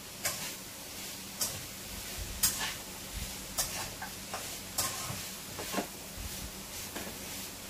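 A cooking utensil scraping and stirring food in a frying pan on the stove, in short strokes about once a second, over a faint steady frying sizzle.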